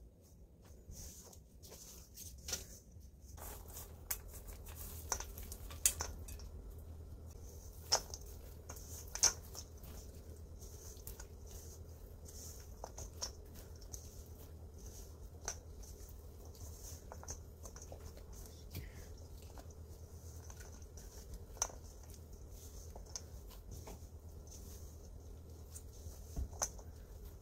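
Silicone spatula scraping and knocking against a stainless steel mixing bowl as thick cookie dough is folded, giving irregular light clicks and soft scrapes, with a faint steady low hum underneath.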